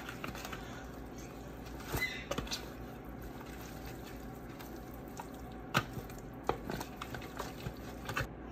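Wet squishing of hands rubbing seasoning into raw chicken pieces, with scattered sharp clicks and taps against the foil pan, a few of them louder about two seconds in and near six seconds in.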